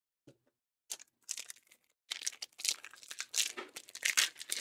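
Topps baseball cards rustling as they are slid through and sorted by hand, a run of quick papery swishes and crinkles that starts about a second in and grows busier from about two seconds in.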